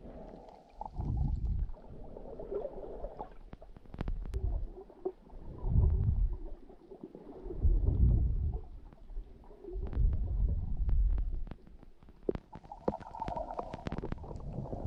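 Muffled underwater sound picked up by a camera held underwater: low rumbling surges of moving water about every two seconds as a swimmer strokes along, with scattered light clicks and ticks.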